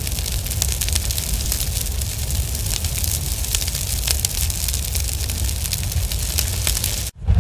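Sound-effect fire, a steady crackling burn over a low rumble. It cuts out just before the end as a loud hit begins.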